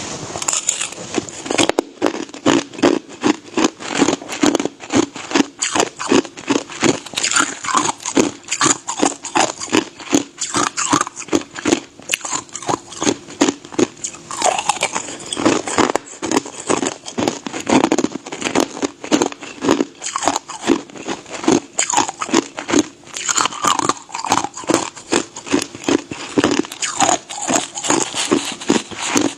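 A person biting and chewing ice close to the microphone: a continuous run of sharp crunches, several a second.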